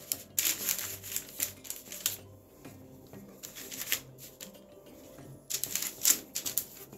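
Parchment paper on a baking tray rustling and crinkling under hands as rounds of rolled pizza dough are laid on it and pressed flat, in quick irregular rustles and soft taps, busiest in the first two seconds and again near the end.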